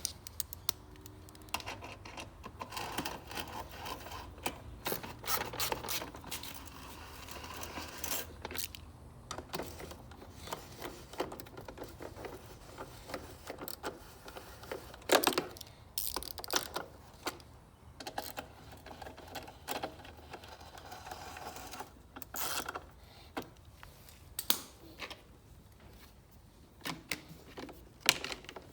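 Hand tools and small mower-engine parts clicking, knocking and rattling as the carburettor and its fittings are put back on. The clicks come irregularly, with a sharp knock about halfway through and another near the end, and there are stretches of rattling and scraping between them.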